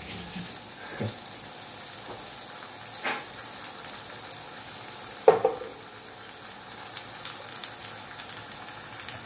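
Oil and butter sizzling and crackling steadily around a stuffed chicken thigh roll searing in a frying pan. A few short knocks are heard, the loudest about five seconds in.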